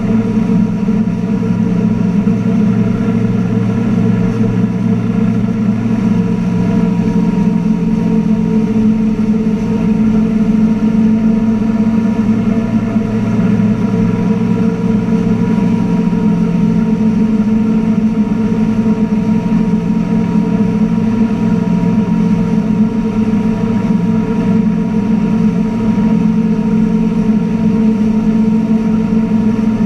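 MasterCraft NXT wake boat's inboard engine running steadily at surf speed, with a constant drone and the churning wash of its wake.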